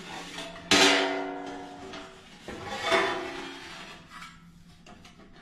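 Stainless steel Solo Stove heat deflector ringing like a bell when a leg being fitted knocks against it. There are two knocks, about two seconds apart, and each ring fades over a second or so.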